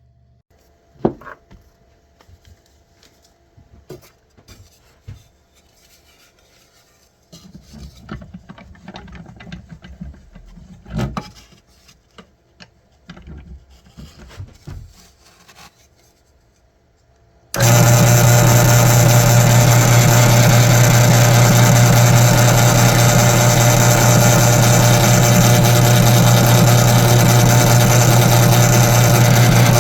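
Wood and tools being handled: scattered knocks and short rubbing noises. About 17 seconds in, a woodworking power tool starts abruptly and runs loud and steady with a strong low hum.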